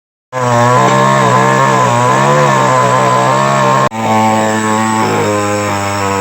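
Chainsaw engine running at high speed, cutting wood, its pitch wavering as it loads and frees up. It starts abruptly a moment in and cuts out briefly near the middle before running on.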